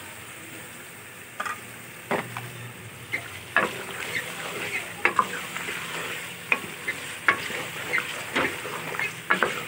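A spoon stirring beef and masala in a cooking pot, scraping and knocking against the pot in irregular strokes over a faint sizzle of frying; the strokes come more often after about two seconds. The salt, red chilli and turmeric are being fried (bhuna) in the juices of tomato and yogurt, without added water.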